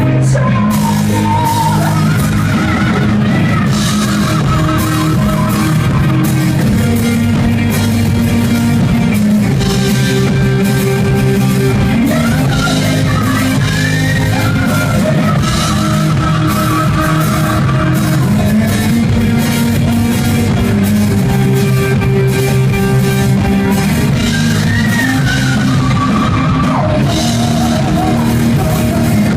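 Rock band playing live, with guitars, bass and a drum kit, and a melody line winding over the top.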